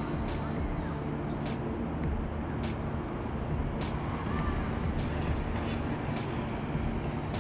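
City street ambience: steady traffic noise with a low hum, and a light sharp click about once a second.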